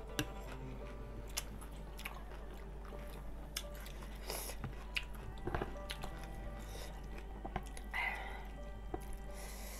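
People eating noodle soup: chewing, with scattered clicks of a spoon and fork against plastic bowls and a brief noisy rush about eight seconds in.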